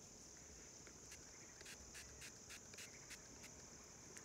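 Faint, steady chirring of crickets, with about eight short, soft hisses in the middle from a setting-spray bottle being pumped toward the face.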